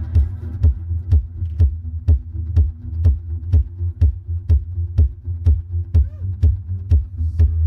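Live electronic music: a steady low bass drone with a sharp click-like beat about twice a second, and a short warbling pitch glide about six seconds in.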